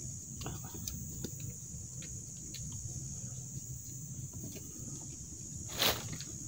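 Insects droning steadily at a high pitch, with light clicks and taps as plastic food containers are handled. A short, loud rustle comes near the end.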